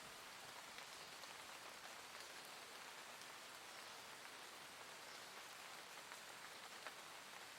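Soft, gentle rain falling steadily: a quiet, even hiss with scattered faint drop ticks.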